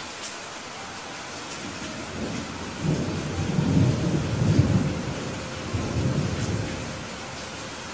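Steady rain with a long roll of thunder: the rumble builds about two seconds in, peaks in the middle, swells once more and dies away near the end.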